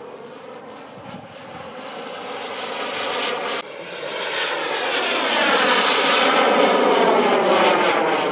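Turbine of a radio-controlled MB-339 scale jet flying past, a rushing jet whine that grows steadily louder as it comes nearer. The level drops suddenly once, about three and a half seconds in, then builds again to its loudest near the end.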